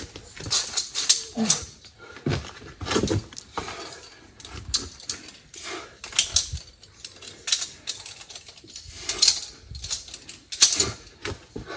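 A climber's heavy, irregular breathing and short strained grunts while pulling up a steep via ferrata section, with small metallic clicks of carabiners on the cable.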